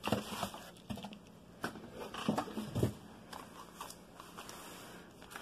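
Brown-paper and plastic-wrapped packages rustling, crinkling and knocking lightly as they are handled and set down on a table. The knocks and crinkles come in the first three seconds, then it goes quieter.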